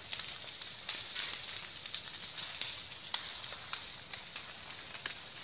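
Vegetation fire burning, crackling with irregular sharp pops over a steady high hiss.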